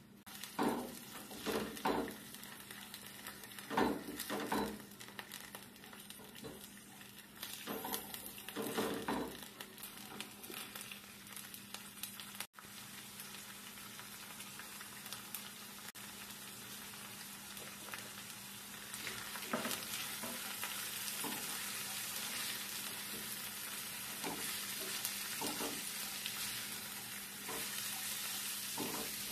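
Lentils, chickpeas and garlic frying in oil in a nonstick pan, sizzling, with bursts of stirring in the first third. The sizzle steadies and grows louder about two-thirds of the way through, as the pan is stirred with a silicone spatula.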